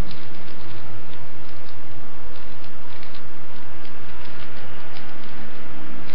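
Plastic Rubik's cube layers clicking as they are turned by hand: a scatter of irregular clicks over a steady loud hiss.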